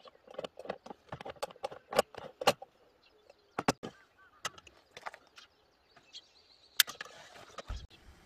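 Aluminium moka pot being screwed together and set down on a portable butane camping stove: a quick run of metal clinks and scraping, then scattered clinks. Near the end comes a single loud sharp click followed by a short hiss as the burner is lit.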